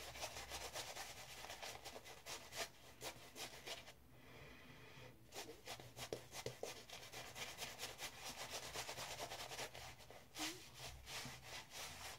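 Shaving brush scrubbing shaving-soap lather onto a bearded face: a run of quick, soft rubbing strokes, with a short pause about four seconds in.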